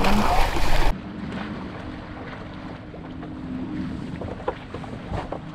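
Wind buffeting the microphone aboard a sailboat under sail, loud for about the first second and then cutting off abruptly to a quieter steady rush of wind and water. Under the rush is a faint steady low hum and a few light clicks.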